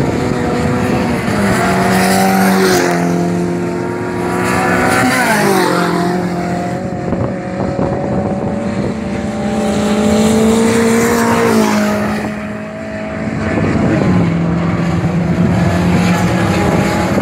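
Dirt-track race car's engine at full throttle. Its note climbs and then drops back sharply several times.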